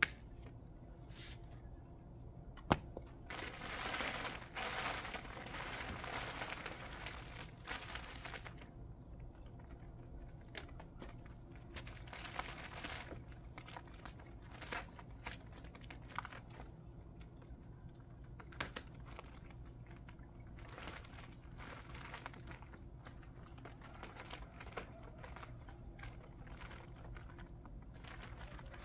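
Crinkling and rustling of a thin sheet being handled, densest for about five seconds early on, then in short bursts with scattered light clicks and knocks.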